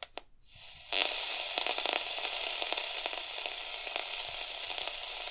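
RunningSnail MD-090 emergency radio's speaker hissing with AM-band static and crackle, tuned at the bottom of the AM band. A click comes at the start, and the hiss comes up about a second in.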